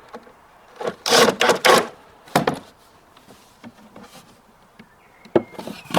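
Wooden panels and parts of a kitchen unit being handled: a few short rubbing scrapes about a second in, another shortly after, and two sharp knocks near the end.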